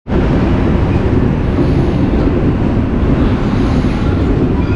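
Steady rumble of wheels on rail and rushing air, heard from the open door of a moving passenger coach of the Kashi Janshatabdi Express as it runs through a station.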